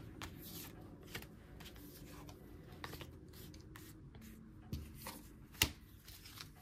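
Tarot cards being handled and shuffled: faint scattered rustles and soft card flicks, with a few sharper taps near the end.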